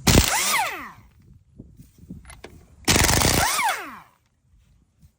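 Bahco 3/8-inch air impact wrench hammering on lug nuts in two short bursts about three seconds apart. Each burst ends in a falling whine as the motor spins down.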